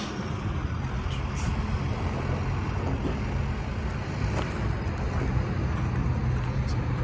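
Steady low hum of a running vehicle engine under a rough, rumbling outdoor noise, with a few faint ticks.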